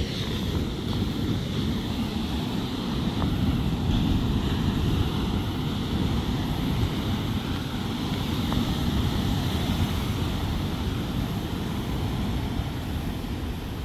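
Wind buffeting the microphone over steady ocean surf washing against a rocky shore.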